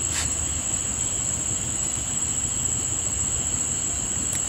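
Steady high-pitched chorus of night insects, with a low rumble underneath and a faint click of handling near the start.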